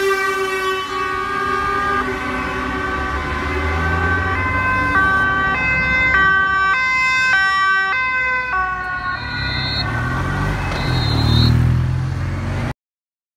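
A truck's air horn blares with a steady tone. Then a two-tone emergency siren switches pitch about three times a second, and a motorcycle engine swells as it passes close by. The sound cuts off abruptly near the end.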